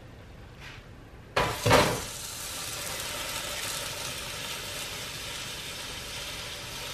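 An egg frying in a nonstick skillet: after a sudden clatter about a second in, steady sizzling.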